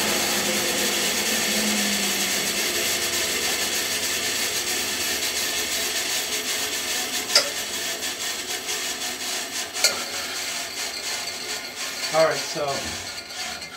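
Band saw running with nothing in the cut and slowly winding down, its motor hum dying out early and the wheel-and-blade noise fading gradually. Two sharp clicks come in the middle, and wooden cut-offs knock and rub together near the end.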